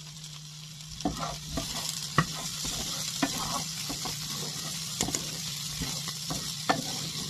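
Diced potatoes and vegetables sizzling in a frying pan, with a steady hiss. From about a second in, a wooden spatula stirs them, scraping and knocking against the pan, over a steady low hum.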